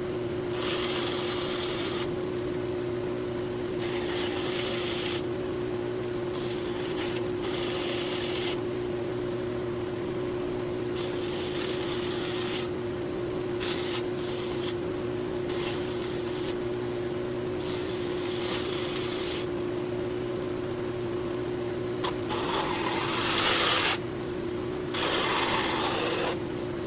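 A small electric shop machine's motor running with a steady hum, while something rubs or grinds against it in irregular stretches of hiss that start and stop, loudest about three-quarters of the way through.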